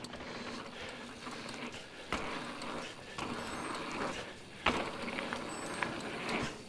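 Mountain bike rolling along a dirt trail: steady tyre and ride noise, with two sharp knocks from the bike, about two seconds in and again at about four and a half seconds.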